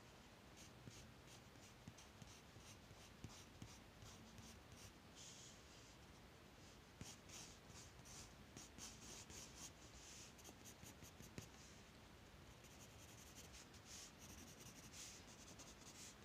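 Faint scratching of a graphite pencil on drawing paper, drawn in many short repeated strokes as lines and hatching are sketched, coming thicker and quicker in the second half.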